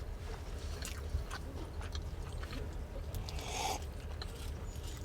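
Someone chewing food, with small clicks and a brief scrape about three and a half seconds in, over a steady low rumble.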